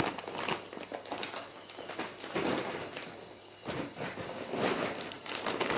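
Plastic bag of dried root pieces being handled and put down: irregular crinkling and rustling with small knocks, louder about two and a half seconds in and again near four seconds.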